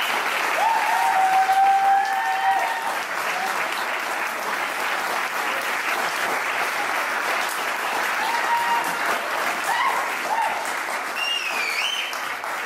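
Audience applauding steadily, with scattered cheers and whoops and a high whistle near the end.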